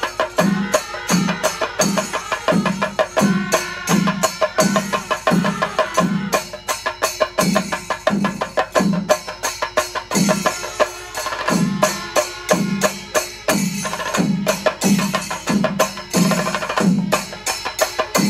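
Chembada melam: Kerala temple percussion ensemble of chenda drums with ilathalam cymbals, playing a steady beat. Deep drum strokes fall about three every two seconds under a dense stream of fast stick strokes and cymbal clashes.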